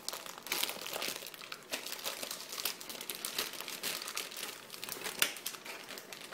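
Clear plastic packaging bag crinkling and rustling in irregular crackles as a router is worked out of it by hand.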